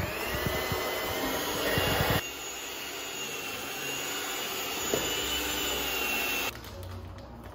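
Electric hand mixer spinning up with a rising whine and running steadily, beating dough in a stainless steel bowl, with a run of knocks in the first two seconds. It cuts off suddenly about six and a half seconds in.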